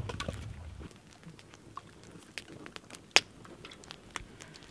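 Faint handling noises: a scatter of light clicks and soft crunches, with one sharper click about three seconds in.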